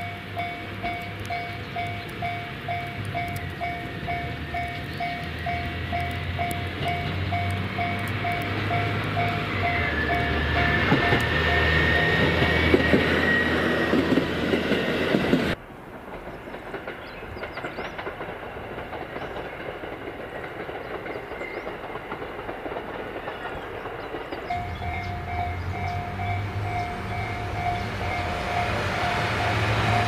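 Diesel railcar running on the line, getting louder as it approaches, with a level-crossing bell ringing at about two strokes a second. The sound cuts off suddenly about halfway through to a quieter stretch of passing train, and the crossing bell starts up again near the end.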